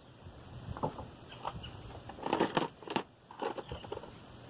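Scattered clicks, clacks and rustling of tools and parts being handled at the engine, with a busier cluster of sharp clicks about two to three seconds in.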